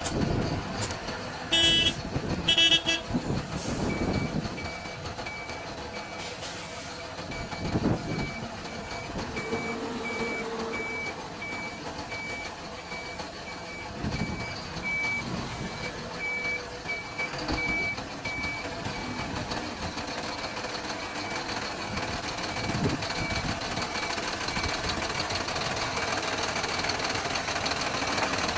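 BharatBenz 2823C tipper truck's reversing alarm beeping at an even pace over the steady running of its diesel engine, with two louder short tones about two seconds in. The beeping grows fainter past the middle while the engine runs on.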